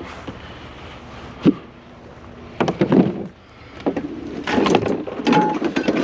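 Knocks and rattling clatter of a discarded basketball hoop's metal parts being pulled and handled. There is one sharp knock early on, a clatter around the middle, then busier rattling toward the end.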